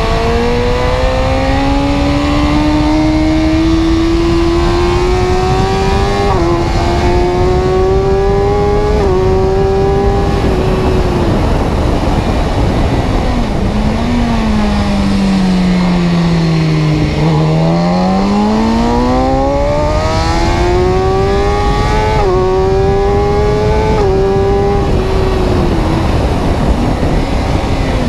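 A car engine accelerating up through the gears, its pitch climbing with a quick drop at each upshift. About halfway through it slows, the engine note falling, then it pulls away and climbs through the gears again.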